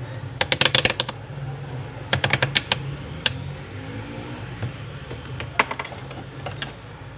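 Quick runs of sharp clicks from a digital multimeter's rotary selector dial being turned through its detent positions, in several bursts, over a steady low hum.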